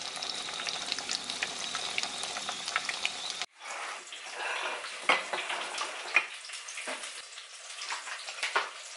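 Breaded cutlets shallow-frying in hot oil in a pan: a dense, steady sizzle with fine crackles that cuts off abruptly about three and a half seconds in. Quieter noise with scattered clicks and light knocks follows.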